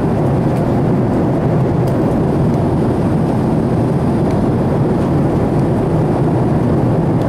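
Steady cabin noise of an airliner: a constant low rush of engines and airflow heard from inside the plane.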